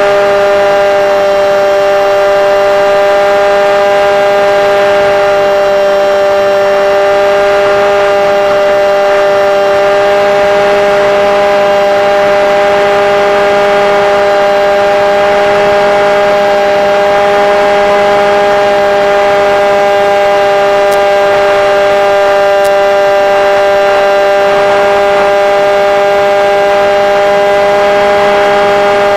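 Multiplex Shark RC airplane's motor and propeller heard from the camera on board the plane: a loud, steady whine holding one pitch, the plane cruising at constant throttle.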